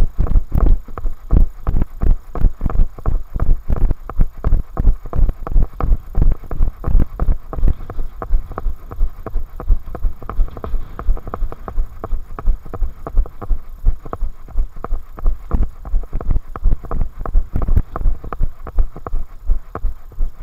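Running footfalls on a tarmac path and the hand-held camera jolting with each stride: a steady, even thud about three times a second.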